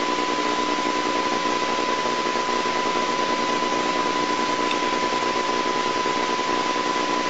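Steady hiss of videotape noise, with a steady high-pitched tone running through it.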